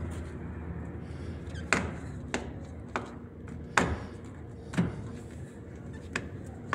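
Sharp clicks and knocks, about seven at irregular intervals, from hands and tools working at the steering wheel to release the airbag module's retaining clips.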